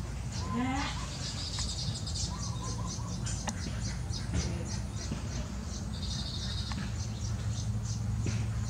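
Baya weavers chirping at their grass nest: a steady run of rapid, short, high-pitched chirps, with a few lower gliding calls in the first three seconds. A low steady hum lies underneath.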